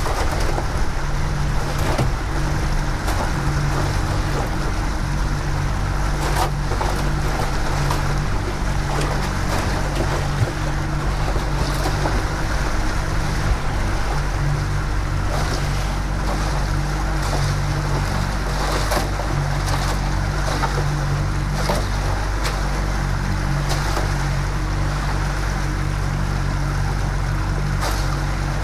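Yamaha 115 outboard motor running steadily at trolling speed, with water rushing in the boat's wake. A few sharp ticks come and go over the motor's steady drone.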